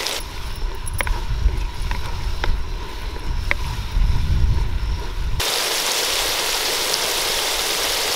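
Onions and spices frying in oil in a pan with freshly added ginger-garlic paste, a steady sizzle. For about the first five seconds a low rumble and a few sharp clicks sit over it; then the sizzling comes up loud and even.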